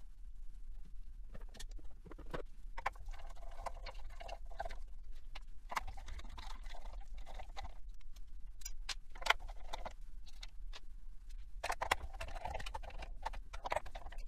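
Gloved hands handling optical fibers and plastic parts inside an opened fiber laser chassis: irregular rustling and scraping with small clicks and taps, over a steady low hum.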